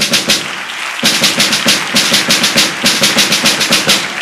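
Military-style snare drum played in rapid, evenly spaced strokes, about seven a second, with a short denser roll near the start.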